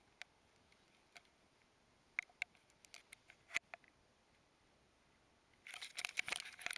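Scattered light clicks and taps, several of them about two to three and a half seconds in, then about a second of dense rustling and clattering near the end.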